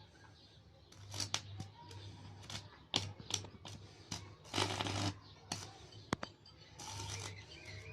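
Homemade arc welder built from fluorescent-lamp and sodium-lamp ballasts, the arc striking and sputtering in short crackling bursts. Each burst brings a low mains hum from the ballasts, and the longest comes about halfway through.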